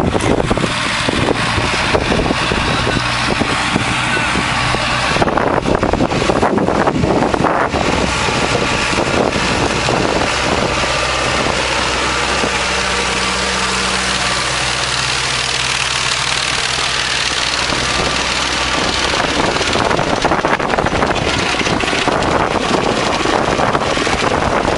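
Hay mower's engine running steadily: a continuous low engine hum under a dense rushing noise.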